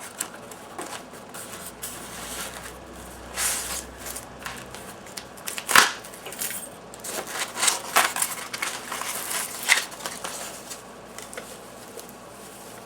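Packaging being handled and opened by hand: irregular rustling, crinkling and sharp clicks and knocks, the loudest a little past the middle.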